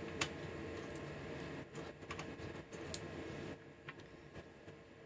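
Faint scattered light clicks and rustling from an IDE ribbon cable being handled inside an open desktop computer case, over a steady faint hum; the handling sounds thin out after about three and a half seconds.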